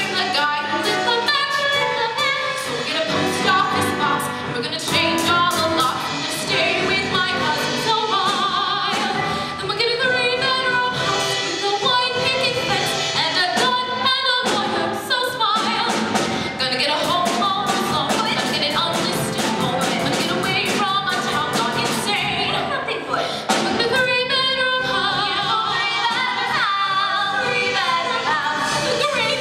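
A woman singing a musical-theatre song with instrumental accompaniment.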